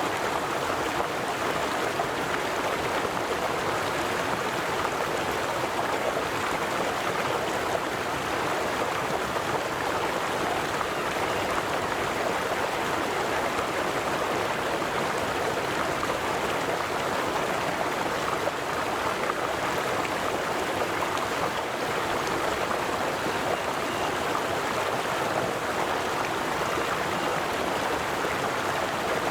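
River water flowing over rocks: a steady, even rushing and babbling with no breaks or changes.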